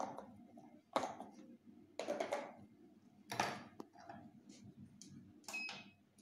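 Cotton pad wiping detox cream off the skin of a face: a handful of short swishing rubbing strokes, over a faint steady hum.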